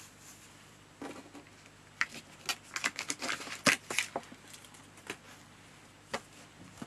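Paper and craft pieces being handled: a scattered run of light rustles and taps, busiest in the middle.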